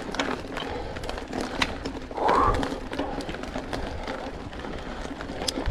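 Mountain bike rolling over a rough woodland trail: a steady run of sharp clicks and rattles from the bike and the ground, with a short rising-and-falling tone, the loudest sound, about two seconds in.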